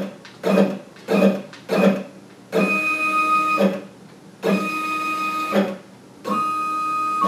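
Sienci LongMill CNC's stepper motors whining while the machine is jogged: a few short blips, then three steady pitched tones of about a second each, each starting and stopping abruptly.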